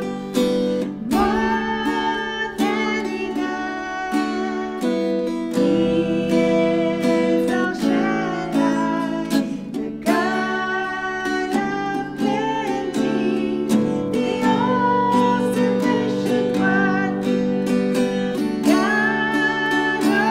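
Acoustic guitar strummed with female voices singing a worship song.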